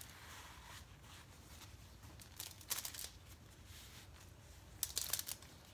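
Faint rustling and handling noises from gloved hands working at the foot: a few short rustles about two and a half to three seconds in, and a louder cluster near the end.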